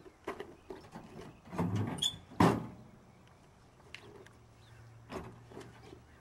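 Scattered knocks and scuffs, with one loud metal clunk about two and a half seconds in, as a pickup truck's tailgate is let down and someone climbs onto it into the bed.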